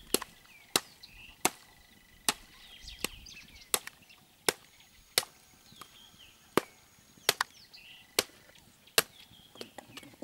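Steady, rhythmic chopping blows of an axe into a porcupine carcass as it is cut through the ribs for butchering, a little over one sharp strike a second, about a dozen in all.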